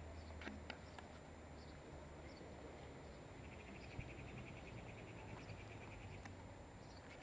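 Faint outdoor background with a low steady hum; a little before the middle an insect starts a rapid, even chirping trill that lasts about three seconds.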